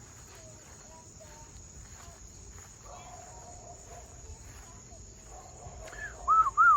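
Steady high chirring of crickets, with faint scattered chirps. Near the end a man starts whistling to call pigeons in: a run of loud, short arched whistle notes, about three a second.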